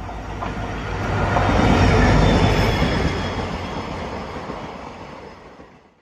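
Express train hauled by a WAP-7 electric locomotive running through at about 110 km/h. The rush of wheel and track noise builds to a peak about two seconds in, then fades and cuts off suddenly at the end.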